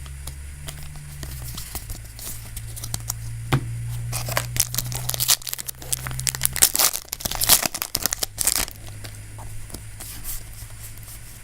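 Foil wrapper of a Yu-Gi-Oh booster pack being torn open and crinkled, with a flurry of crackling and rustling about four to nine seconds in, over a low steady hum.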